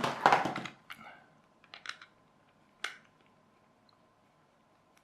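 Handling noise from a plastic toy radio-control transmitter being taken apart: a scratchy, clattering rattle in the first second, then a few sharp plastic clicks, the last about three seconds in.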